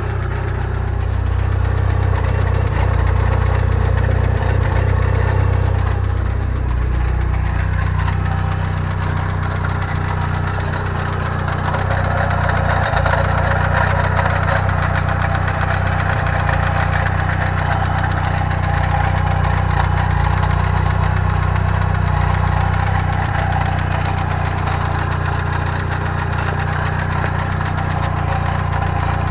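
Car engine running with a rattling knock, caused by a loose starter ring gear on a Fidanza aftermarket flywheel, though at first suspected to be rod bearings. The engine's note shifts about seven seconds in.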